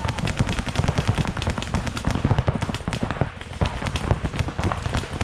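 Paintball markers firing in a rapid, overlapping barrage of sharp pops, many shots a second with no pause.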